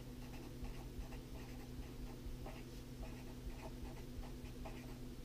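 Marker pen writing a word on paper: a run of short, uneven strokes as the letters are drawn, over a faint steady low hum.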